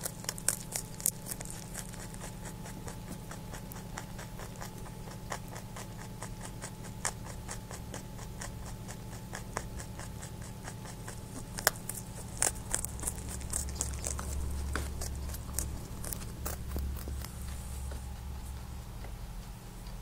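Pet rabbit crunching and chewing a piece of carrot right at the microphone: a quick, irregular run of small crisp crunches, several a second.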